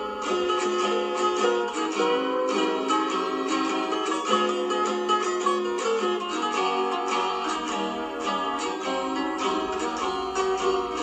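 Guitar music: many plucked notes in quick succession over a steady, continuous backing.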